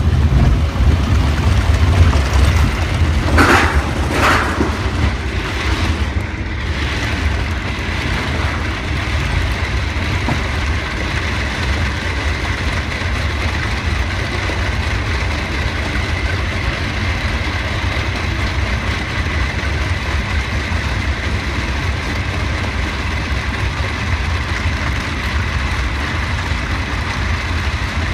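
Roller coaster train being hauled up the lift hill by its chain lift, a steady mechanical rumble with a faint whine above it. There are two brief louder noises about three and a half seconds in.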